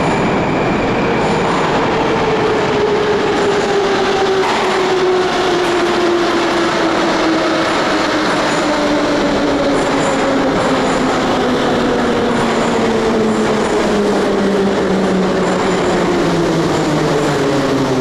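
Moscow metro train pulling into an underground station, with a loud steady rumble of wheels on rail. The traction motors whine and the whine falls steadily in pitch as the train slows to a stop.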